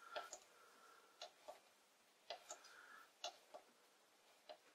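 Faint, regular ticking, often in pairs, about one tick a second, close to silence.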